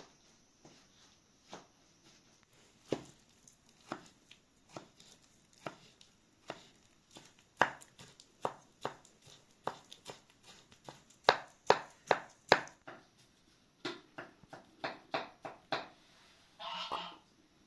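Knife chopping on a cutting board: sharp, separate strokes at an uneven pace, coming in quicker runs of several a second in the middle and later on. Near the end there is a short noisy burst of about half a second.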